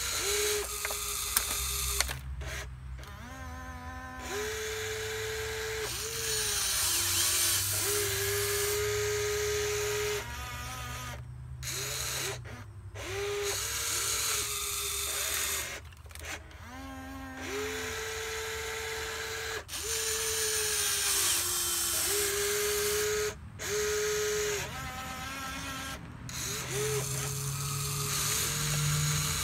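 Wltoys 16800 RC excavator's electric motors and gearboxes whining in short runs as the boom, arm and bucket move while digging, each run starting and stopping abruptly, with the pitch stepping up and down as different motions switch in.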